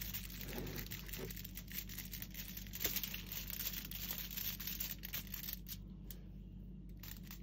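Thin plastic crinkling and tearing as a cut plastic bottle is peeled off a moulded sausage, with aluminium foil rustling underneath. The crackling thins to a few soft clicks near the end.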